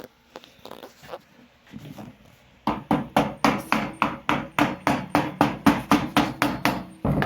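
A few light knocks, then a fast, even run of hammer taps, about four a second for some four seconds, as a dust-collection adapter is tapped onto a saw's vacuum port.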